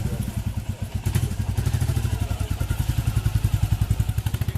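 Royal Enfield Classic 350 (2021) with its single-cylinder Meteor-type engine, idling: an even, rapid train of low exhaust thumps.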